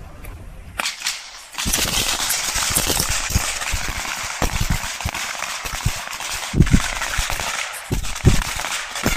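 Pistol gunfire on a firing line: a few separate shots, then from about a second and a half in a dense run of overlapping shots from many 9 mm service pistols firing at once.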